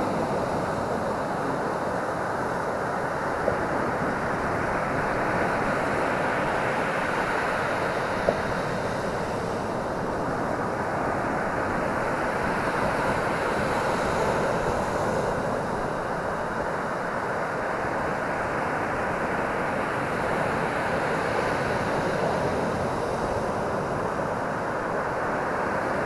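Ocean surf breaking and washing up a sandy beach: a steady, rushing wash that slowly swells and eases as the waves come in, with two brief faint ticks in the first few seconds.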